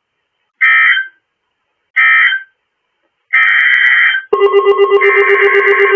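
EAS end-of-message data tones: two short, loud, screeching digital bursts about a second and a half apart, then a longer burst about three seconds in. About four seconds in, music with a steady pulsing beat starts.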